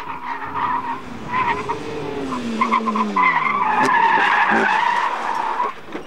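Rally car's tyres skidding and squealing as it brakes hard into a corner, while the engine note falls steadily as the car slows. The sound cuts off sharply near the end.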